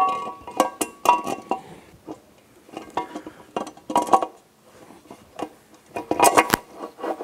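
Metal clinking and knocking as a forward gear and its parts are fitted by hand into an outboard lower unit gearcase: several clusters of sharp clinks with a short ringing tone, the last cluster near the end.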